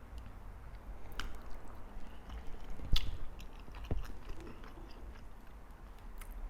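A person chewing and biting food close to the microphone, with scattered wet mouth clicks and smacks; the loudest comes about three seconds in.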